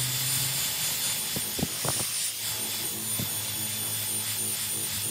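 Cordless drill spinning a foam polishing pad against car paintwork, buffing polish into the panel: a steady motor whine over the hiss of the pad rubbing the paint, with a few light ticks.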